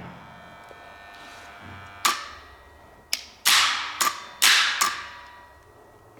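Solenoid-operated aluminum clamps of a curtain drop controller snapping open and shut. There are about six sharp metallic clacks, each with a short ringing tail, starting about two seconds in and coming close together around the middle.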